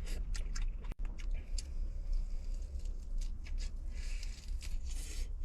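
Scattered small clicks and taps over a steady low rumble, with a short hissing stretch about four seconds in.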